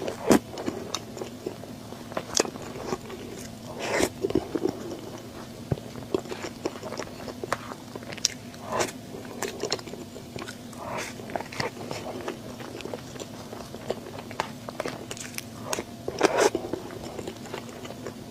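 Close-up eating sounds: irregular bites, crunches and chewing, with sharper crackling bites at the start, about four seconds in and near the end.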